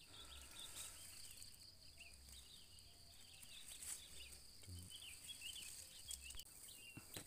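Faint outdoor ambience: scattered small birds chirping over a steady high insect drone.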